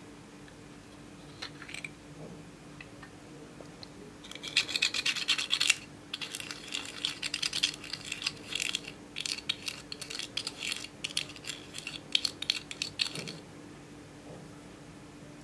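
A small spoon scraping pressed eyeshadow out of its pan: a fast, rough scratching that starts about four seconds in and goes on for about nine seconds, with two short breaks.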